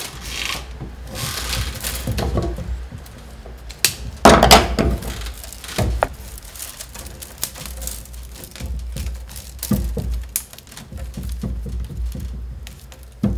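Peeled willow stakes being gathered upright and tied together by hand: rustling and creaking of the rods with scattered light knocks and clicks, and a louder rustle about four seconds in.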